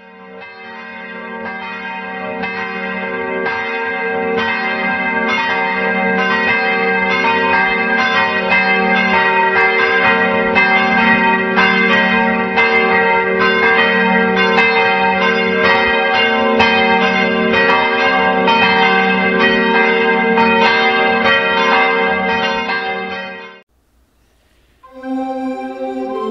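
A peal of several church bells rings, fading in at the start and then cutting off suddenly near the end. After a short silence, recorders begin playing a tune.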